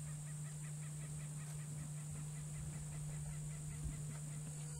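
Rio Grande wild turkey calling: a fast run of short, evenly spaced notes, about seven a second, that stops a little after halfway through.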